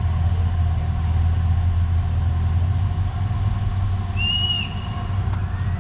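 Off-road competition truck's engine idling steadily with a low hum. About four seconds in, a single short high whistle sounds over it.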